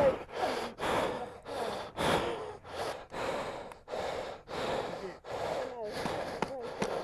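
A person panting heavily, about two quick breaths a second, some with a faint voiced catch, out of breath after the exertion of lifting a fallen motorcycle.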